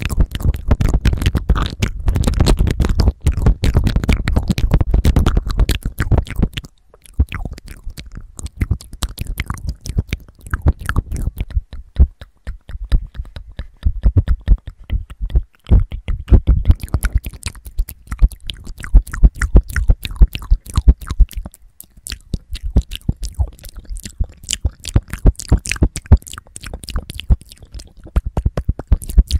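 Close-mic ASMR mouth sounds: wet mouth clicks and mic licking with the lips right on the recorder's microphone capsules, a rapid crackly stream of clicks. Heavy low thumps from the mouth against the mics fill the first several seconds, and there is a short break about seven seconds in.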